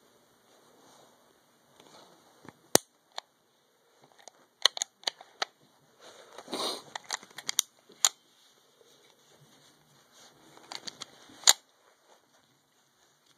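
Metal clicks and clacks from a Canik 55 S120 steel-framed pistol being handled and worked by hand. There is one sharp click about three seconds in, a quick run of clicks around five seconds, rubbing with more clicks around seven to eight seconds, and a loud click near the end.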